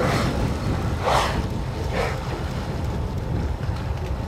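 Killer whales surfacing and exhaling: three short, breathy blows about a second apart, over a steady low rumble of boat and wind noise.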